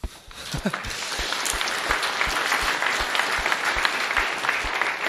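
Audience applauding: dense clapping that starts suddenly and carries on steadily, with low thuds about three times a second from a clap close to the microphone.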